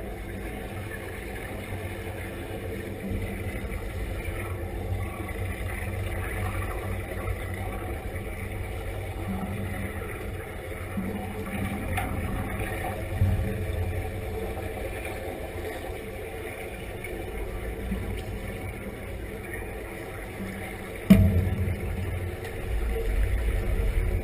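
Underwater sound in a diving tank: a steady low rumble from surface-supplied helmet divers' exhaust air and bubbles. Near the end there is a single sharp knock, after which the rumble grows louder.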